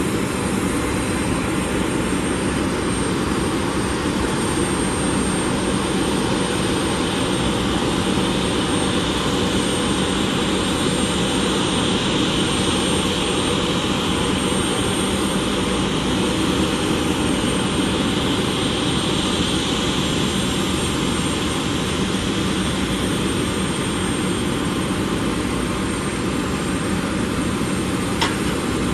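An Airbus A330-243F freighter's Rolls-Royce Trent 700 jet engines running at taxi idle: a steady rumble and hiss with a thin high whine, swelling slightly in the middle. A brief click near the end.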